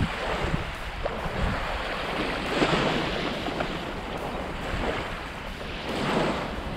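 Small waves washing onto a sandy shore, swelling louder twice, with wind buffeting the microphone.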